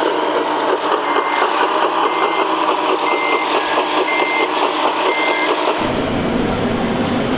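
An RC construction model's sound module plays a diesel engine running, with a reversing beeper sounding about once a second. The beeps stop about five seconds in, and just after that the sound changes abruptly to a deeper, rougher engine sound.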